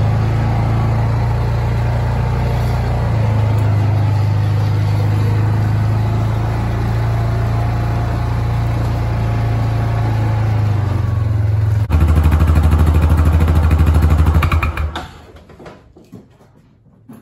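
Off-road vehicle's engine running steadily while driving through the woods. About twelve seconds in it changes to a louder, pulsing idle, which stops about three seconds later as the engine is shut off, leaving only a few faint knocks.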